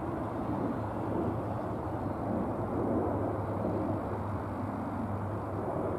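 Boeing 737-800's CFM56-7B jet engines at takeoff power as the airliner climbs out after takeoff, a steady, even rumble that swells slightly midway.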